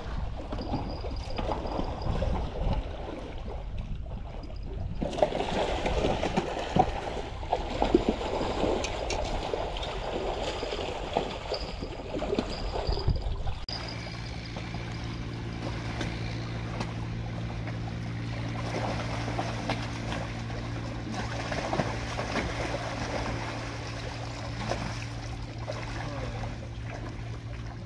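Water trickling and lapping with scattered light knocks; about halfway through, a steady low engine hum starts abruptly and runs on under the water sound.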